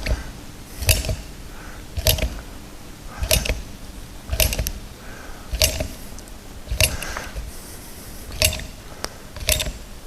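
Hand sealant gun being pumped to lay a bead of windscreen sealing compound: a sharp metallic click at each squeeze of the trigger, about one a second.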